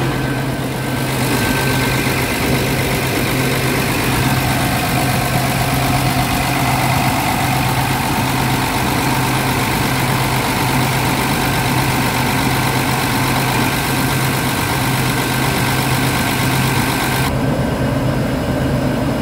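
Scania R470 diesel engine idling steadily with an even low hum. A brighter, hissier layer in the sound comes in about a second in and drops away near the end.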